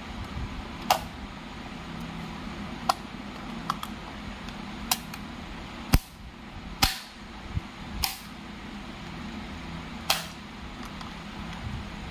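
Moulded case circuit breaker's spring-loaded mechanism snapping over as it is worked by hand: about eight sharp, loud clicks at irregular intervals, the loudest a little past the middle, over a steady low hum.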